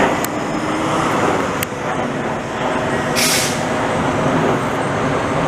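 Jet airliner's engines making a steady roar as it passes close, with a short hiss about three seconds in.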